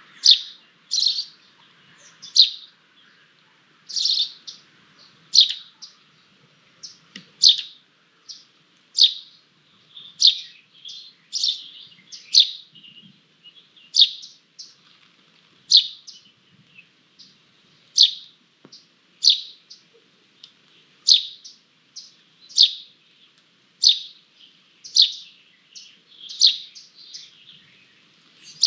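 Common buzzard chicks peeping in the nest: short, high, falling calls repeated steadily about once every second and a half.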